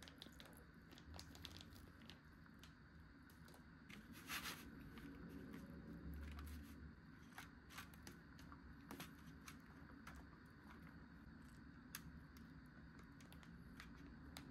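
Faint scattered clicks and rustles from handling a chilled tsukesoba's plastic container and packaging, with one brief louder rustle about four seconds in.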